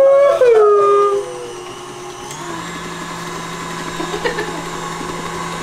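A shouted, gliding "woo" for about the first second, then a steady, even hum like a small electric motor running.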